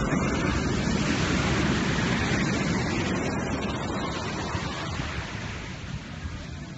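Ocean surf on a beach, a rushing wash of waves that is loudest at the start and fades away over several seconds.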